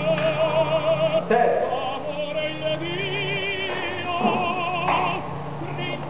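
Background music: a singing voice holds long notes with a wide vibrato, moving to a new note every second or so over a steady low accompaniment.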